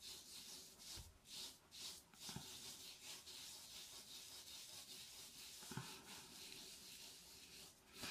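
Faint rubbing of fingertips working a grainy walnut-shell exfoliating scrub over facial skin, with a few soft bumps.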